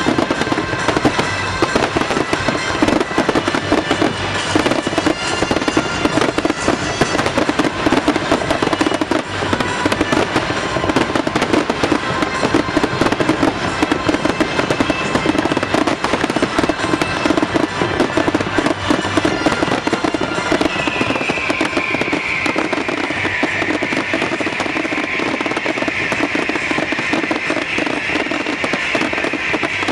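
Fireworks display: dense, rapid crackling and popping of bursting shells, with music playing under it. From about twenty seconds in, a steadier high crackle comes to the fore.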